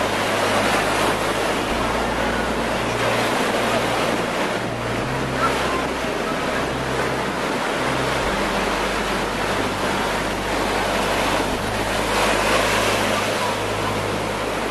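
Steady rush of wind and moving water.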